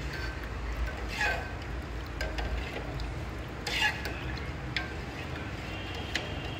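A spoon stirring buttermilk in a cooking pot, with a few scattered clinks and knocks of the spoon against the pot over a steady low hum.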